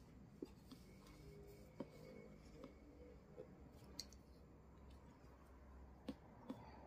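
Faint clicks and handling noise from a pair of scissors being opened and snipping at the seal tape on a cardboard tablet box. A few sharp clicks stand out, two of them close together near the end.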